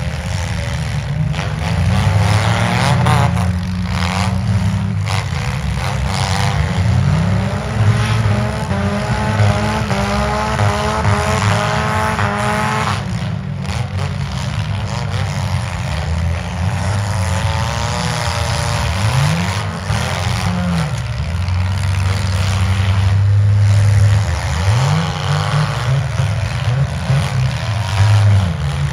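Several demolition derby cars' engines running and revving at once, their pitch repeatedly rising and falling as the cars push and ram each other.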